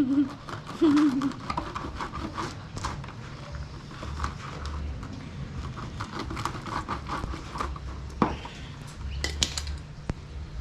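A parrot gives a short, wavering talk-like call about a second in, followed by scattered clicks, scratching and rustling.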